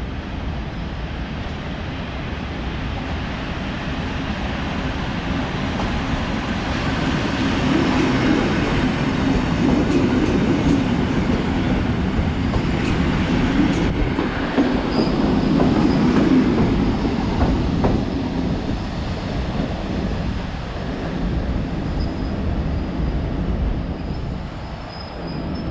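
PKP EN57 electric multiple unit pulling into the platform and slowing to a stop. The wheels rumble and clatter on the rails, growing louder as the cars run past from about seven to eighteen seconds in, then easing off, with a few sharp clicks and faint high squeals.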